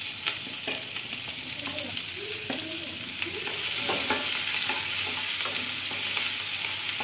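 Sliced onions and chopped green chillies sizzling in oil in a non-stick wok, stirred with a wooden spatula that scrapes and taps against the pan. The sizzle gets a little louder about halfway through.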